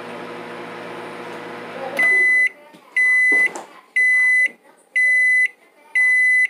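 Microwave oven running with a steady hum that cuts off about two seconds in. It then beeps five times, once a second, signalling that the heating cycle is done.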